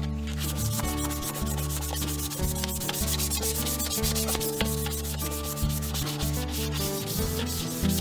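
Sandpaper rubbing steadily over the carved surface of a walnut wooden plate, a continuous dry scratching.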